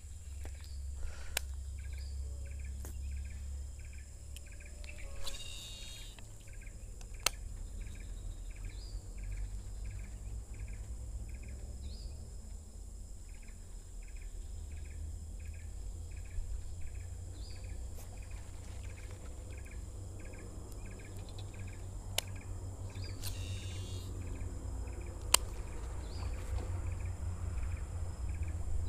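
Flooded-forest ambience: an insect chirping in a steady series of about two to three pulses a second over a steady high insect whine, with a low rumble and a few sharp clicks.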